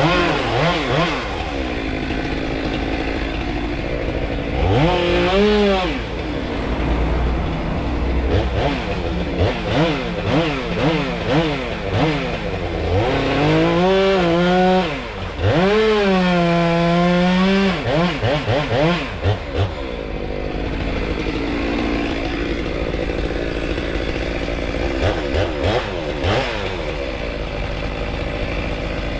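Stihl MS 193 T two-stroke top-handle chainsaw revving up and down in many short bursts, with two longer full-throttle runs near the middle, over a steady low hum.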